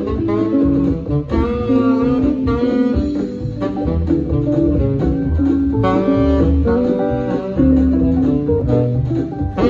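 Saxophone playing a sliding melody line over a country-swing accompaniment of guitar and bass, in an instrumental break of the song.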